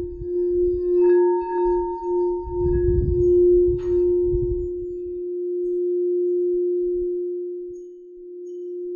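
Frosted quartz crystal singing bowls: one bowl holds a steady low hum, with higher tones ringing in about a second in and dying away by about three seconds. There is a brief tap near four seconds and a low rumble under the first half, and in the second half the hum slowly swells and fades.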